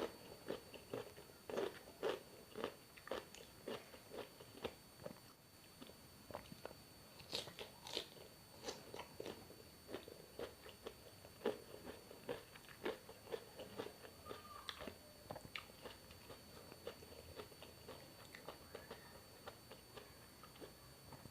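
A person chewing and biting food close to the microphone: a steady run of crunchy chews and small wet mouth clicks, about one to two a second, growing softer and busier in the second half.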